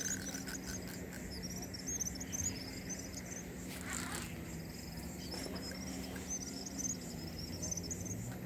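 Small birds chirping in quick repeated series of short, high, upward-hooking notes, over a steady low hum. A brief burst of noise comes about four seconds in.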